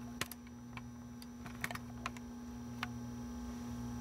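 Faint, irregular light clicks and ticks over a steady electrical hum.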